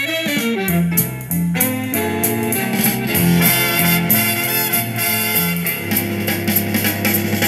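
Music played from a vinyl record on a 1975 Micro Seiki MB-10 belt-drive turntable, heard through loudspeakers. It is a steady piece with guitar and a bass line stepping from note to note.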